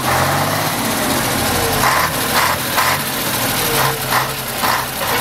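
Scania 112 truck's diesel engine running steadily, freshly restarted after fuel starvation had stalled it.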